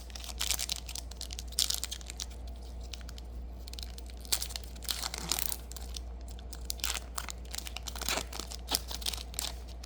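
Foil Yu-Gi-Oh booster pack wrappers crinkling and being torn open by hand, in irregular crackly rustles, over a steady low hum.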